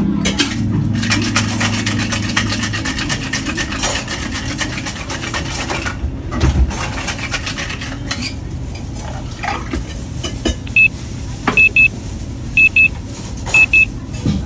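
Bar glassware and utensils clinking and clattering, densely at first and then in scattered knocks. Near the end comes a series of short, high electronic beeps, mostly in pairs, about a second apart.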